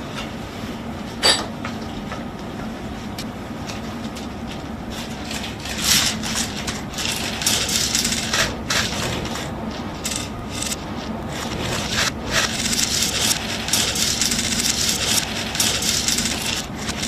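Wooden shogi pieces dropped from a cloth and clattering onto a wooden shogi board, many times over: the furigoma toss that decides who moves first. A single sharp click comes about a second in, and a steady low hum runs underneath.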